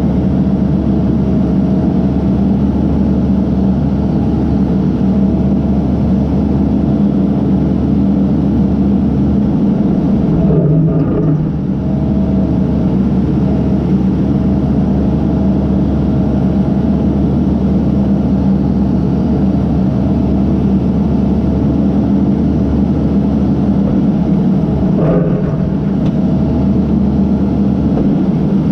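Case backhoe's diesel engine running steadily at an even pitch. There is a brief dip in level about ten seconds in, and a single knock near the end.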